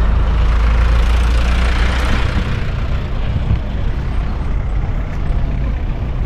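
City street traffic with a large bus's engine running close by, a steady heavy low rumble throughout.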